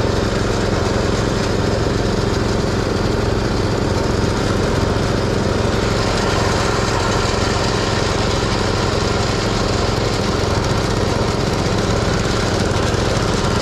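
Small pull-started engine running steadily at a constant speed, a continuous even drone.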